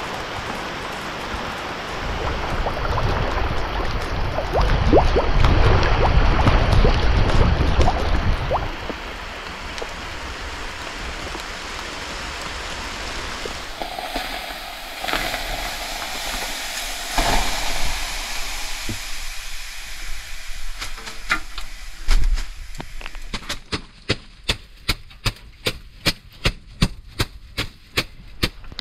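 Wind gusting against the microphone on a stormy shore. Then water splashed onto hot sauna stones hisses into steam, and near the end a leafy sauna broom (venik) slaps against skin in a rapid run of strokes, about three a second.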